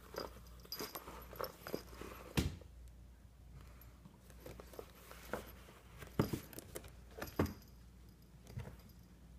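A cat intoxicated on silver vine rolling and rubbing against a cardboard scratcher box: a string of knocks, bumps and rustles at uneven intervals, the loudest about two and a half seconds in, with a couple of light metallic jingles.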